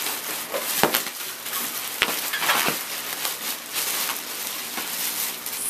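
Plastic bubble wrap being handled and pulled off a box, a continuous crinkling and rustling with a few sharp clicks.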